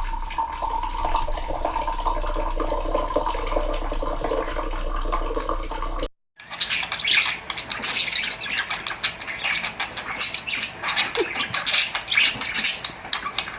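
Parrot squawks and chatter with running water, split into two clips by a brief silence about six seconds in. The first part carries a steady hum under held tones; the second is a dense run of short, sharp, high calls.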